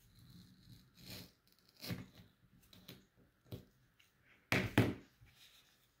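Victorinox straight-edged paring knife slicing through a tomato and knocking on the cutting board: a few soft knocks, then two louder thunks in quick succession about four and a half seconds in.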